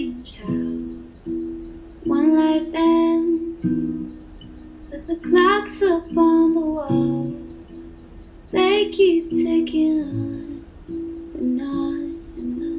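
Soft pop ballad with plucked acoustic guitar and a singer's voice, the voice coming in three phrases over the guitar.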